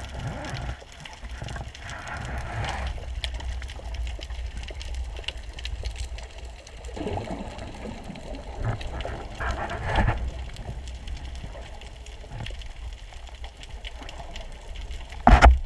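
Underwater sound on a spearfishing dive: a steady low rumble of water with a constant fine crackle of clicks, and swells of rushing water a couple of times. A single loud thump comes about a second before the end.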